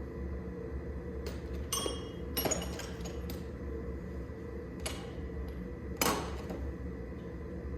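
Several sharp metallic clinks of metal on metal, spaced irregularly with the loudest about six seconds in, over a steady low machine hum.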